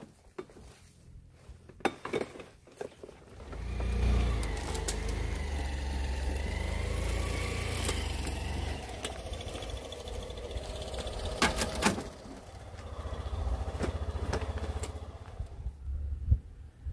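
A motor vehicle's engine running, its low rumble rising about four seconds in, easing off about twelve seconds in, then swelling again and fading away near the end. A few sharp knocks are heard along the way.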